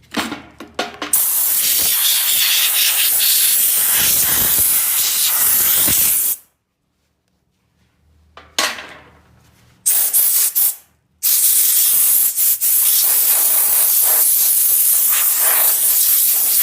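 Compressed air hissing from an air chuck, blowing debris out of a chainsaw's housing: a few short spurts, a long blast of about five seconds, a pause, more short spurts, then another long blast.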